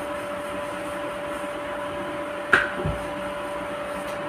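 Steady humming of a small electric motor, like a fan or kitchen appliance, with a single sharp knock about two and a half seconds in.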